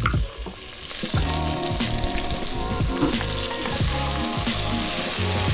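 Onions, garlic and freshly added tomatoes sizzling in hot oil in a pot, the sizzle growing steadier about a second in, over background music with a steady beat.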